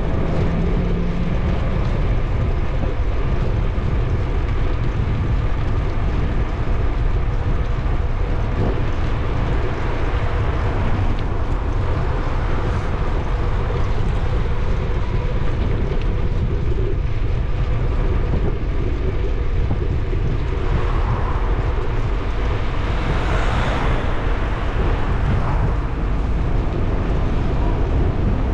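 Steady low rumble of wind buffeting a bike-mounted camera's microphone, with tyre and road noise from the moving bicycle. About three-quarters of the way through, passing traffic swells up briefly twice.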